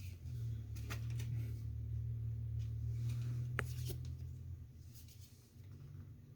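Yu-Gi-Oh trading cards being handled and slid against one another, with a few light clicks and rustles, over a low steady hum that fades out after about four seconds.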